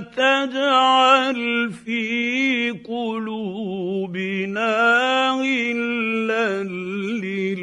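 A man's voice reciting the Quran in slow, melodic tajweed chant, drawing out long ornamented notes with short breaths between phrases.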